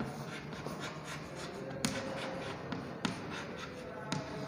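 Chalk writing on a chalkboard: soft scratching strokes, with a few sharper taps about two, three and four seconds in.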